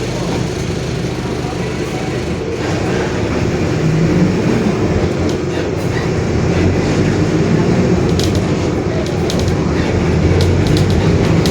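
Mercedes-Benz OF-1721 Bluetec 5 city bus under way, its diesel engine and drivetrain running steadily while the differential growls. The sound grows slowly louder, with light clicking rattles in the second half.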